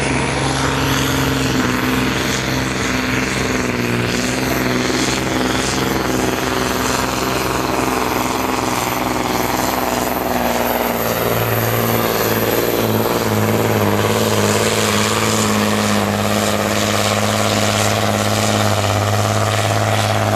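Diesel engine of a truck-pulling supersport truck running hard under load, a steady deep drone that shifts pitch about eleven seconds in.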